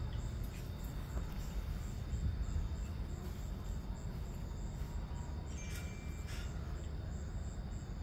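Night insects chirping outdoors: a high, even pulse about three times a second, over a steady low rumble. A couple of short sharp sounds come about six seconds in.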